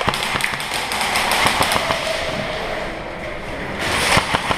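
Airsoft guns firing: a string of sharp, irregular pops and clicks that grows denser and louder near the end.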